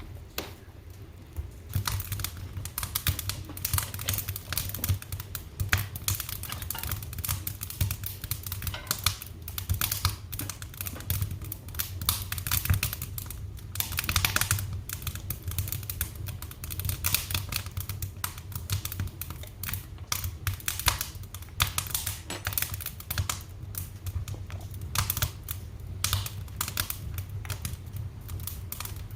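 Wood fire crackling in a fireplace, dense irregular snaps and pops over a low steady rumble; the crackling thickens about a second and a half in.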